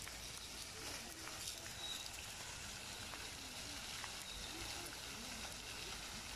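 Steady outdoor background hiss with faint, distant voices.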